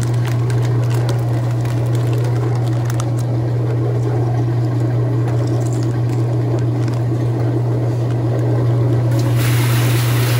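Whirlpool direct-drive top-load washing machine in its spin cycle: the motor hums steadily as the basket spins, with water rushing through the drum and drain. A brighter hiss joins near the end.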